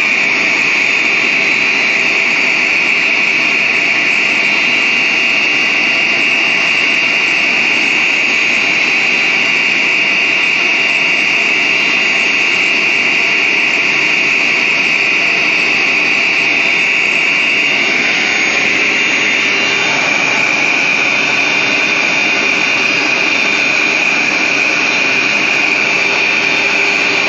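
CNC wood router's spindle running at high speed: a loud, steady high-pitched whine over machine noise, shifting slightly in pitch about two-thirds of the way through.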